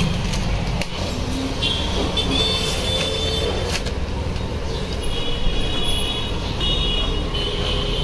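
Steady low rumble of road traffic, with high, thin warbling tones about two seconds in and again from about five seconds in.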